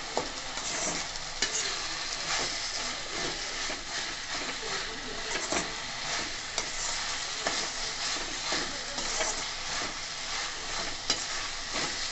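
Sliced onions, tomatoes and dried red chillies sizzling in oil in a stainless steel kadai while a perforated steel ladle stirs and scrapes them, with scattered sharp clicks of the ladle against the pan.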